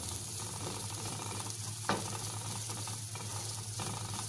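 Chopped onions and green chillies frying in oil in a nonstick pan, sizzling steadily while a wooden spatula stirs and scrapes them. One sharp knock about two seconds in.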